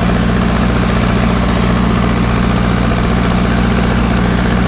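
Zetor tractor's freshly rebuilt diesel engine running steadily as the tractor drives along in sixth gear, a constant low drone.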